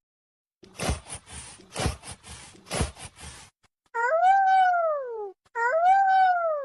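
A dog: a string of short, rough huffing sounds, then two drawn-out howling calls, each rising and then falling in pitch.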